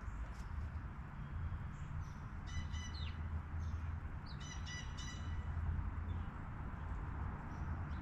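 Birds calling: two short runs of quick, sharp notes, about two and a half and four and a half seconds in, with a few fainter single calls, over a steady low rumble.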